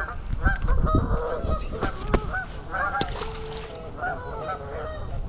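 A flock of geese calling, with many short calls overlapping one another. A sharp click comes about two seconds in and another about three seconds in.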